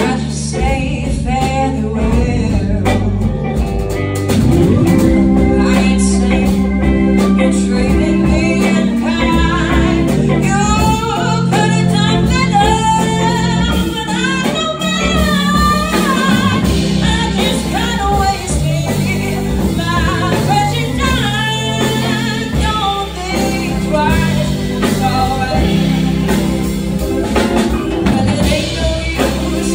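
Live band music: a woman singing into a microphone over piano, electric guitar and drums, in a blues-soul style.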